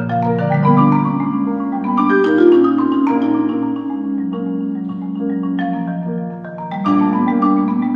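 A concert marimba played with mallets over grand piano accompaniment, in a dense stream of quick notes. There is a brief softening about six and a half seconds in, then a loud new entry.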